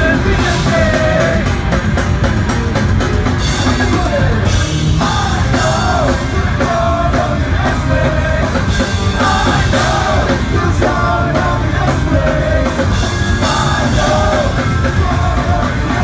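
Punk rock band playing live: electric guitars, bass and drums under vocals sung into the microphones, loud and steady throughout.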